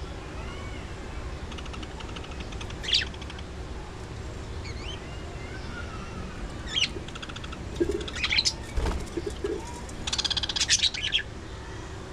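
Budgerigars chirping and chattering: short whistled chirps and warbles with several louder buzzy rattling bursts, the busiest stretch about ten seconds in, over a steady low hum.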